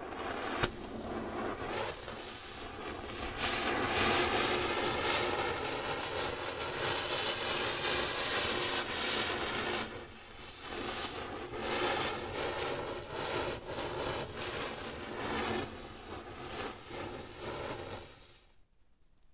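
Diwali ground spinner firework (chakri) burning and spinning, throwing sparks with a loud, steady rushing hiss and a wavering whistle-like tone in it. There is one sharp crack about half a second in. The hiss stops abruptly near the end as the spinner burns out.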